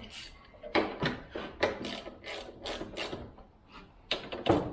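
Socket ratchet wrench clicking in short repeated strokes, about three a second, as bolts on the chainsaw mill rig are worked, with a louder clack near the end.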